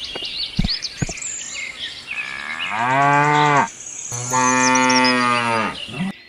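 Cow mooing twice: two long, low calls, each bending up at the start and sliding down at the end. Bird chirps and a few sharp taps come before them.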